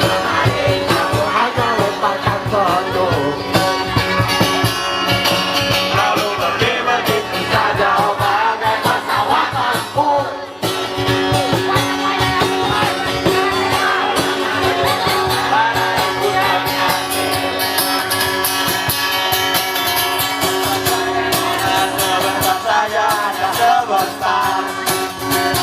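Music: a song sung by a voice over guitar accompaniment.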